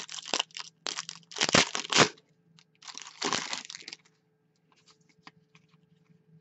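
Hockey card pack wrapper being torn open and crinkled in bursts, loudest about one and a half to two seconds in, with another burst around three seconds. After that come light clicks and rustles of cards being handled.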